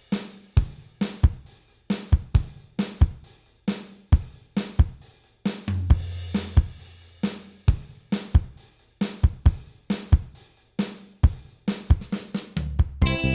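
Background music: a drum-kit beat of kick, snare and cymbals with a held bass note in the middle, and pitched instrument notes coming in near the end.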